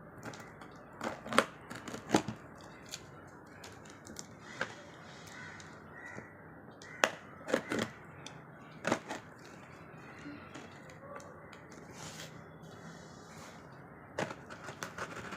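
Hands working at a tightly sealed product box to get it open: scattered sharp cracks, clicks and crinkles of packaging being pulled and pried, over a low steady hiss.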